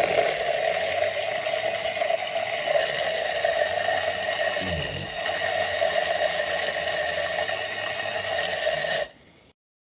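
Handheld battery milk frother's small motor running steadily with a high whirr, then cutting off suddenly about nine seconds in.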